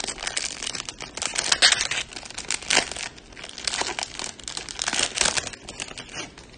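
Plastic wrapper of a Topps Chrome value pack of trading cards crinkling as it is torn open and peeled back by hand, a run of rustling crackles that thins out near the end.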